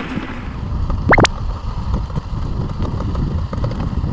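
Steady low rumble of wind buffeting the microphone during a ride, with a quick rising chirp about a second in.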